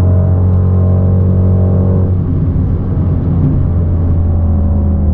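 Synthesized Mercedes-AMG GT 63 S twin-turbo V8 engine and exhaust sound from a smartphone app, played through the car's own speakers inside the cabin while driving. A steady, loud low engine note whose higher tones drop away about two seconds in, as if the throttle eases off, settling into a lower, rougher note.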